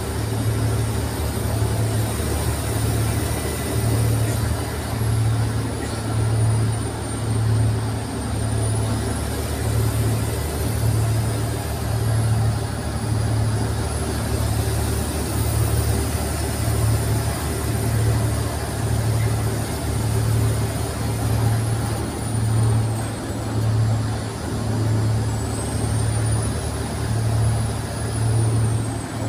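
Wright Eclipse SchoolRun bus driving along, heard from the rear seats inside the cabin: a steady low engine drone that throbs about once a second, with a faint high whine drifting slowly up and down.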